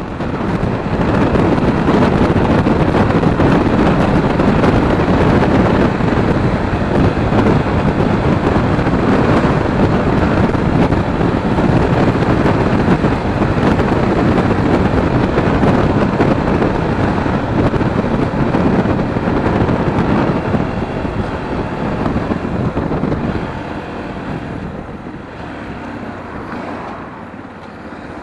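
Wind rushing over the microphone of a Sinnis Terrain T125 125cc motorcycle riding at speed, a loud steady rush that drowns out the engine. It eases noticeably after about twenty seconds.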